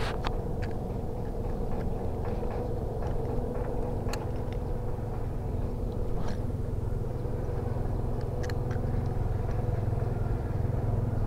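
Motor vehicle engine running steadily: a low rumble with a steady hum, with a couple of sharp clicks right at the start.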